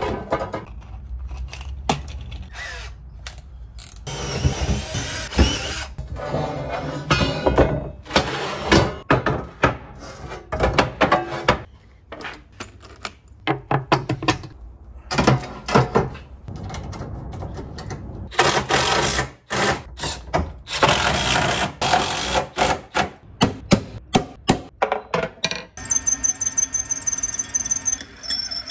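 A handheld power tool run in repeated bursts of a few seconds each, stopping and starting many times, with handling clatter in between.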